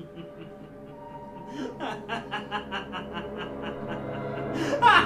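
A man laughing, starting softly and building from about a second and a half in into quick, rapid laughter that grows louder toward the end, over background music.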